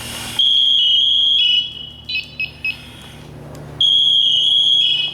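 SCBA PASS (Personal Alert Safety System) device alarm sounding, loud and high-pitched: a long tone held for over a second, a few short chirps, then the long tone again near the end. It is the manual-activation distress alarm that signals a downed or trapped firefighter.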